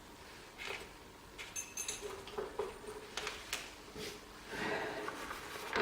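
Small metal parts handled on a workbench: scattered light clicks and taps, with a brief metallic ring about one and a half seconds in.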